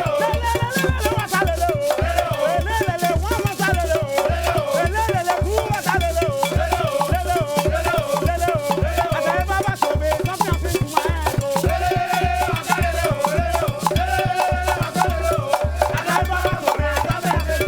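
Upbeat band music with a steady, even bass beat about twice a second, rattling percussion and a wavering melody line over it.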